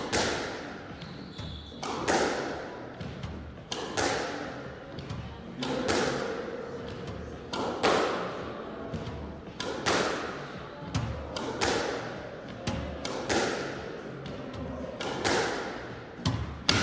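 Squash ball driven again and again with a racket in solo forehand drills: a sharp crack about every two seconds, with softer knocks of the ball off the front wall and floor between strikes, each ringing on in the court's echo.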